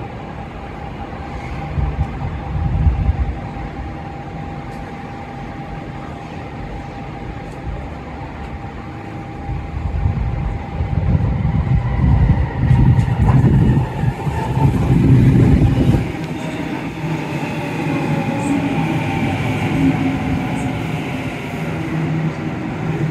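Sydney Trains Waratah double-deck electric train arriving at a platform: a brief low rumble about two seconds in, then the rumble of its wheels on the track swells as it draws close and drops away after it passes, and its electric motors give a falling whine as it slows.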